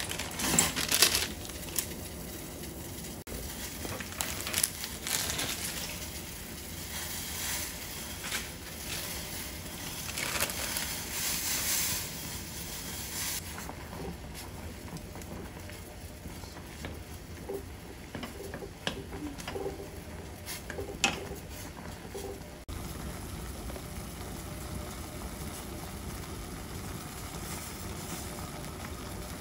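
Instant noodles cooking in a stainless saucepan of boiling water: steady bubbling, with stirring and splashing from wooden chopsticks and scattered light taps in roughly the first half, then calmer boiling.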